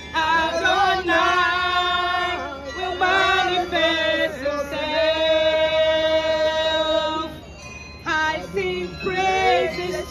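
A woman singing a worship song into a handheld microphone, her voice amplified. Partway through she holds one long note, then breaks off briefly before singing on.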